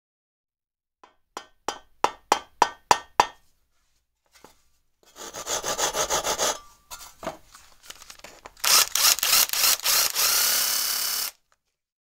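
Workshop tool sounds on wood: about eight sharp knocks at about three a second, then a run of rasping strokes, then a longer, louder stretch of steady rasping that cuts off suddenly.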